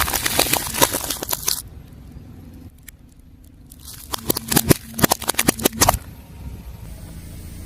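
Crunchy objects cracking and crunching under a car tyre, in two bursts of dense crackling, one at the start and one about four seconds in.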